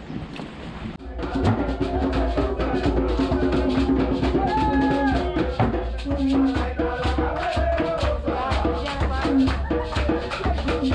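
Music with a steady percussive beat and strong bass, starting about a second in.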